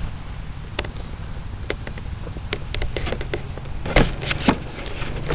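Wind buffeting the microphone in a low rumble, with scattered sharp clicks and two louder knocks about four seconds in.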